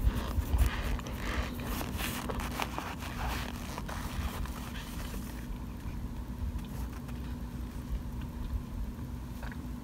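A plastic spoon scraping and crunching through oven-baked cornstarch chunks. The crackling is dense for the first half and thins out to a few faint clicks after about five and a half seconds.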